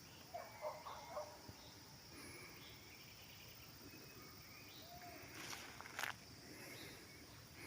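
Faint open-air ambience: a steady high insect hum, with a few short bird calls in the first second or so and a sharp click about six seconds in.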